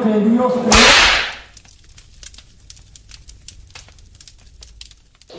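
A sudden loud whoosh-and-hit transition sound effect about three-quarters of a second in, fading over about a second, followed by faint scattered crackling like burning embers.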